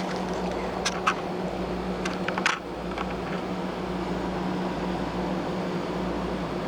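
A steady low mechanical hum, with a few short sharp crackles about a second in and again around two and a half seconds.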